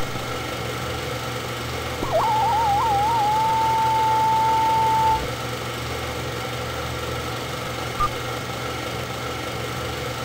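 Film-leader countdown soundtrack: a steady low hum with hiss, and a test tone near 1 kHz that wavers as it starts about two seconds in, then holds steady for about three seconds. A single short beep comes about eight seconds in.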